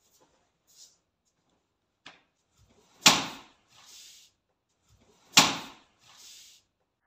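Two sharp slaps, a little over two seconds apart, as lunging karate punches strike a hanging bundle of newspaper. Each slap is followed by a short rustle of paper, and a lighter tap comes about a second before the first.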